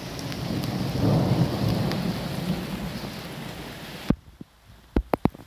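Rolling thunder over steady rain hiss: a low rumble swells about a second in and fades away. Just after four seconds the sound drops off abruptly and a few sharp clicks follow.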